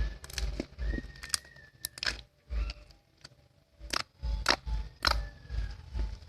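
Slime crackling and popping in sharp clicks as it is squeezed and worked, over background music with a steady low beat that drops out briefly midway.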